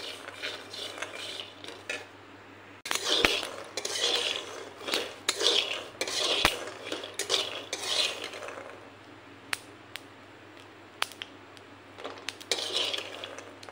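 A flat metal spatula stirs and scrapes raw peanuts around a dry aluminium kadai, the nuts rattling against the pan. The stirring comes in bursts, with a lull holding a few single clicks, then resumes near the end.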